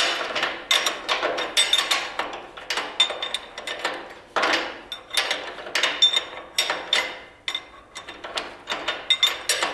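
Ratchet wrench clicking in quick repeated strokes as a nut is turned on a trailer turntable-ring bolt.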